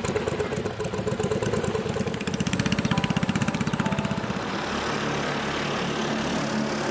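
Small motorboat engine puttering past with a rapid, even firing beat. It is loudest about two to three seconds in, then settles into a steadier drone as the boat moves off.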